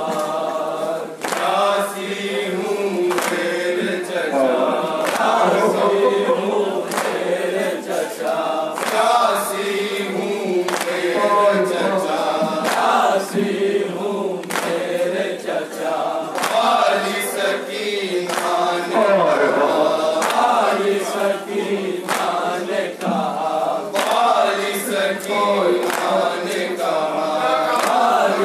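A group of men chanting a Shia noha lament in unison. Palms strike chests (matam) in a steady beat, roughly once a second.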